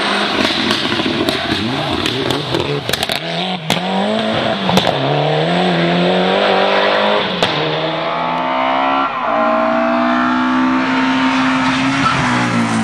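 Mitsubishi Lancer Evolution rally car's turbocharged four-cylinder at full throttle on a gravel stage, with gravel spray and several sharp cracks as it comes through, then revving up and down through gear changes as it passes. Near the end a second rally car's engine takes over, held at high revs with its pitch slowly rising.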